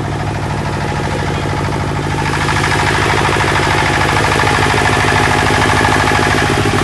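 30 kVA diesel generator set running steadily inside its acoustic canopy. About two seconds in the canopy door is opened and the engine sound becomes louder and brighter.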